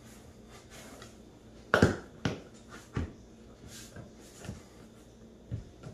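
Plastic Tupperware lid being pressed down around the rim of a large plastic bowl, giving a handful of short plastic clicks and knocks, the loudest about two seconds in.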